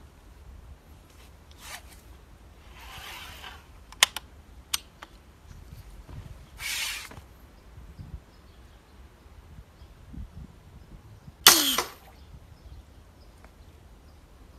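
Hunting slingshot rifle fired with a metal fishing dart on a line: one loud sudden snap with a falling tone about eleven and a half seconds in. Before it, a few light clicks and rustles of the rifle being handled.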